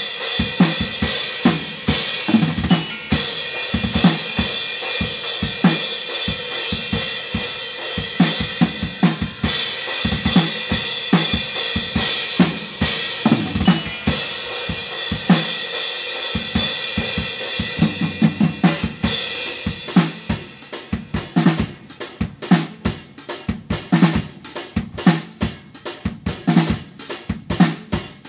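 Drum kit played at full tilt: snare and bass drum under a constant wash of crash and ride cymbals, then, about two-thirds of the way in, the cymbal wash cuts off and a run of rapid, separate drum hits follows.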